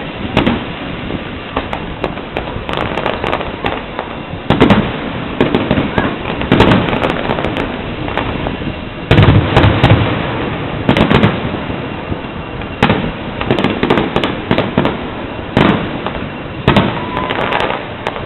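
Aerial firework shells bursting, a run of sharp bangs coming in clusters a second or two apart; the loudest bangs come about nine to ten seconds in.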